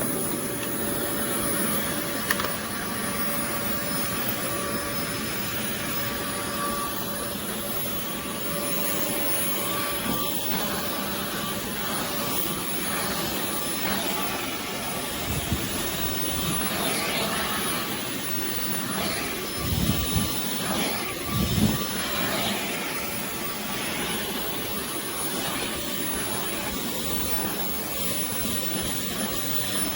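Oreck Commercial XL Pro 5 compact canister vacuum running steadily, an even rushing airflow with a fixed high motor whine. A few low bumps come through about two-thirds of the way in.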